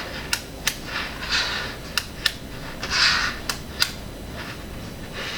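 Tiny 5 mm magnetic balls snapping together with sharp clicks, about six in all, between short scraping rustles as the ball triangles are handled and joined.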